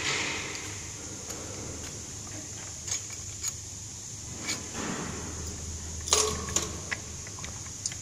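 Parts of a robot being handled during disassembly: scattered clicks, short scrapes and knocks of plastic and small components, the loudest clatter about six seconds in, over a steady low hum.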